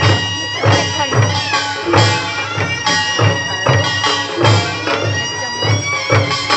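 Korean traditional folk band playing: drums strike a steady beat, a little under two a second, under a sustained, reedy high melody line.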